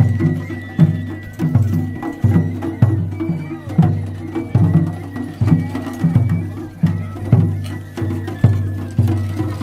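Japanese festival float music (matsuri-bayashi): taiko drums beating a steady rhythm, heavy strokes a little faster than one a second with lighter strokes between, under a high flute melody.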